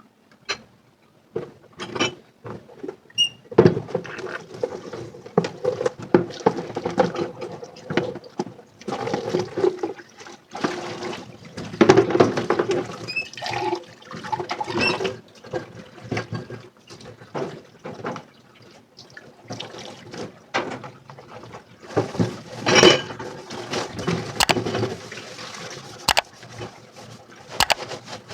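Dishes being washed in a sink: water running and splashing, with frequent clinks and knocks of dishes and utensils against each other and the sink.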